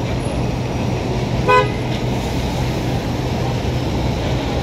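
Steady street traffic rumble, with one short vehicle horn toot about a second and a half in.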